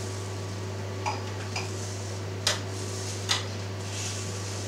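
Four light clicks and knocks of plastic and crockery being handled, the last two the sharpest, as a pressed cheese head is freed of its stuck plastic drainage mat. A steady low hum runs underneath.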